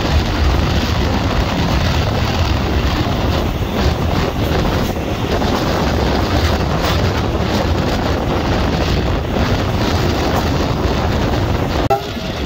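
Passenger train running along the track, heard from an open carriage window, with wind buffeting the microphone: a loud, steady rush with a heavy low rumble and a brief drop near the end.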